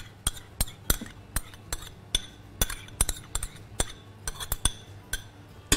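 A metal spoon clinking against a metal stand-mixer bowl while yogurt is spooned in, a run of sharp clinks about two or three a second, unevenly spaced.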